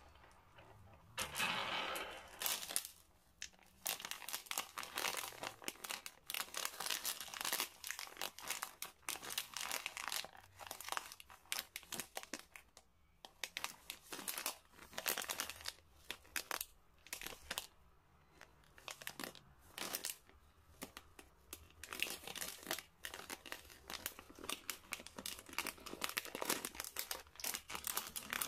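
Plastic wrapper of a bag of chocolate mini eggs crinkling and rustling in irregular crackles as gloved hands handle it and tear it open.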